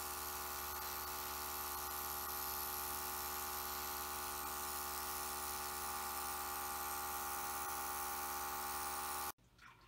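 Airbrush compressor running steadily with a hum, under the hiss of air from a gravity-feed airbrush spraying acrylic paint; the sound cuts off suddenly near the end.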